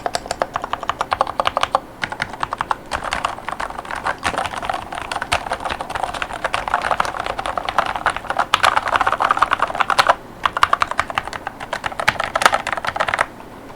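Fast typing on a Glorious GMMK3 HE keyboard with Glorious Panda HE tactile Hall-effect switches and PBT OEM-profile keycaps: quick runs of keystroke clacks with brief pauses, stopping shortly before the end.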